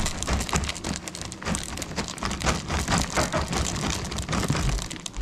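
Chocolate chips poured from a plastic bag into a stainless-steel mixing bowl of batter: a dense, irregular patter of many small ticks, like rain.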